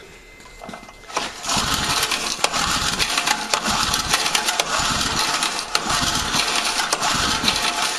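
A Husqvarna rototiller's small gas engine, pull-started on choke, catches about a second in and runs steadily at full throttle.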